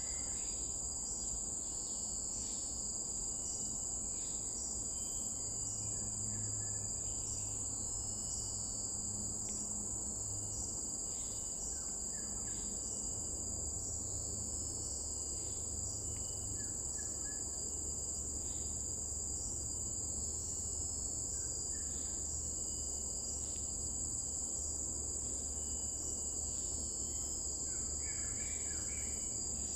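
Insects, crickets among them, trilling in a continuous high-pitched drone, with a second insect pulsing in a steady rhythm and a few short faint chirps now and then.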